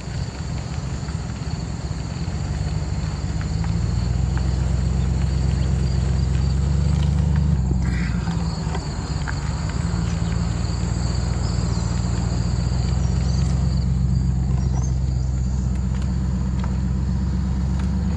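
Truck driving slowly, its engine and tyres a steady low drone heard through an open side window, growing louder over the first few seconds and then holding. A steady high insect buzz runs underneath.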